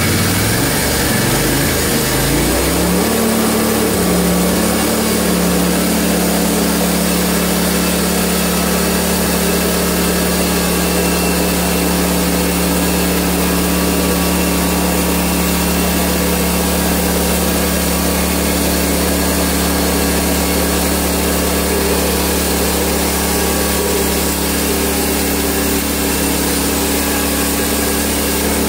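Gasoline engine of a portable band sawmill speeding up from a low idle about two to three seconds in, then running at a steady high speed.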